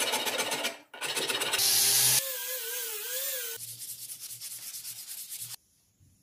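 Sandpaper scraping along a wooden tomahawk handle in several short bursts of scratchy strokes, with a wavering whine in the middle. The sound cuts off abruptly about five and a half seconds in.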